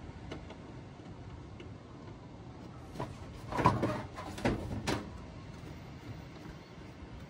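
Handling noise: a short run of knocks and clatter between about three and five seconds in, loudest at the first, over a faint steady background.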